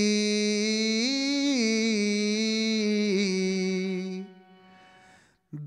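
Harmonium holding a single sustained note, rising one step about a second in and returning half a second later, then dying away about four seconds in as the key is released.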